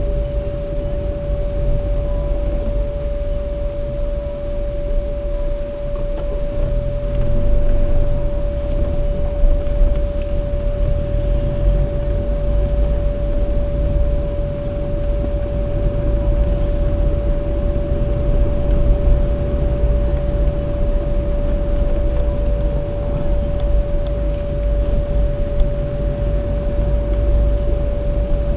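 Steady low rumble of a moving vehicle's engine and road noise, with a constant pure humming tone running unbroken through it.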